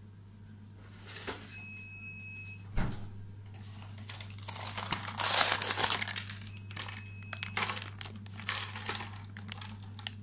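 Plastic packaging crinkling and rustling in handling, loudest around the middle, with a thunk about three seconds in. Two short, high electronic beeps sound, one about two seconds in and one about seven seconds in, over a steady low hum.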